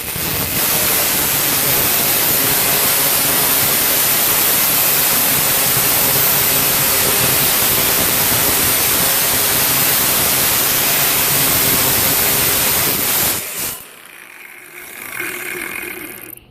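Power saw cutting through a metal rain gutter, a loud steady rasping noise that stops sharply near the end.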